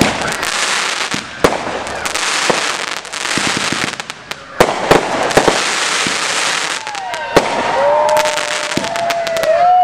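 Aerial fireworks display: shells bursting with repeated sharp bangs over continuous crackling. Sliding whistling tones rise and fall over the last few seconds.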